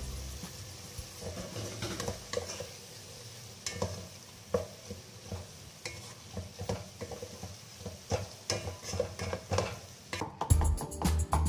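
White plastic spatula stirring and scraping chopped coriander and spring onion leaves through a tomato mixture in a metal pot, in irregular strokes over a light sizzle. Background music comes back in near the end.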